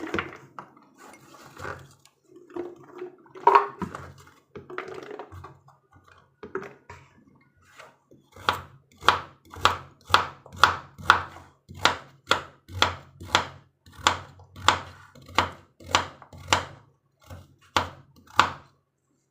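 Knife chopping carrots. Scattered knocks and handling come first; from about eight seconds in there is a steady run of sharp chops, roughly two a second.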